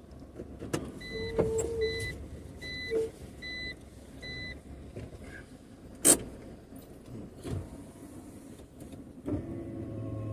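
A car: five short, even electronic beeps about half a second apart, a sharp click a little past halfway, then the engine starting and running steadily near the end.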